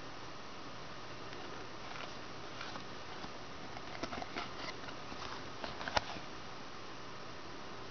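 Faint rustling and small taps of a handmade cardstock card being handled and opened, with one sharp click about six seconds in, over a steady background hiss.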